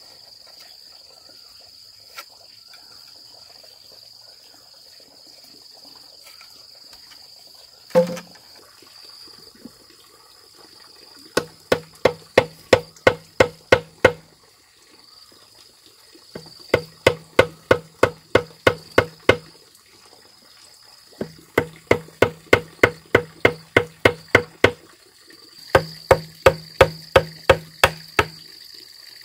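Four runs of quick, ringing tool strikes on bamboo, about ten in each at roughly four a second, after a single heavy knock. Insects buzz steadily and high behind them.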